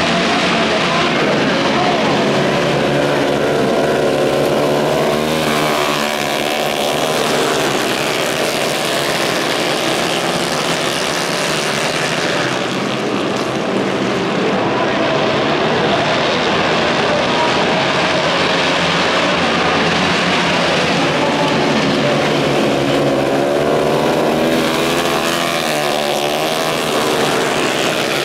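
Several flat-track racing motorcycles at race speed, their engines rising and falling in pitch as they sweep past on the dirt oval.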